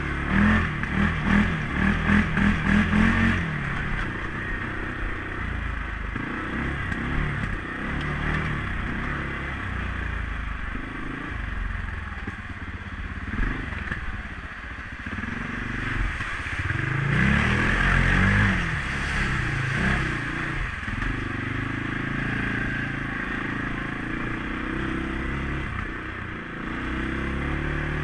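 A CFMOTO CForce 500S ATV's single-cylinder engine running under way. It revs in short pulses for the first few seconds, then runs at changing speed with a rise in revs about two-thirds of the way in, and settles steadier near the end.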